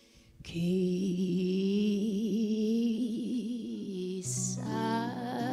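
A recorded female vocalist with a low, dark voice holds a long note with a slow, wide vibrato over soft jazzy band accompaniment. It starts about half a second in after a brief silence, and a new chord comes in near the end.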